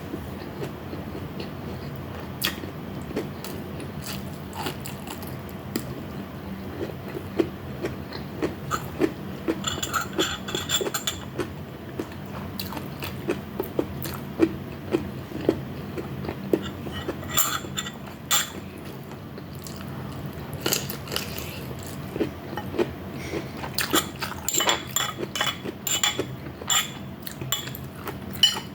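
Close-miked eating: a person biting and chewing fried pork chop and vegetables, with irregular crunches and wet mouth clicks, denser in a few spells. A steady low hum sits underneath.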